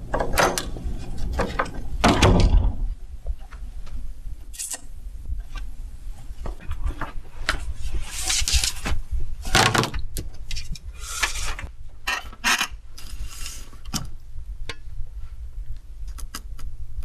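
An interior door being unlatched and opened, then scattered small clicks and brief rustles over a low steady hum.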